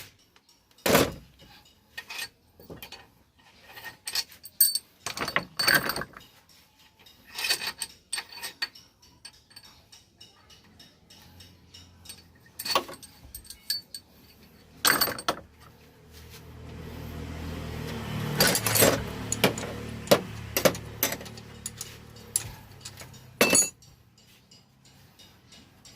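Metal hand tools and engine parts clinking and knocking at irregular intervals while a Daihatsu CB engine is being taken apart. A low hum swells in over the second half and fades near the end.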